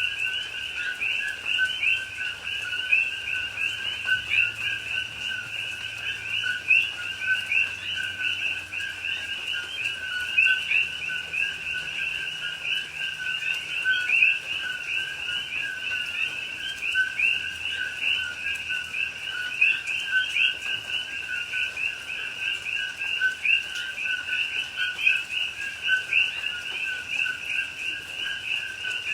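Night chorus of many coqui frogs calling at once. Each call is a two-note "co-qui", a lower note followed by a higher, rising one, and the calls overlap in a dense, unbroken stream.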